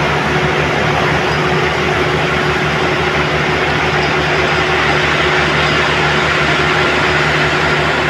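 Heavy machine engine running steadily at constant speed, a loud even rumble with a steady hum through it.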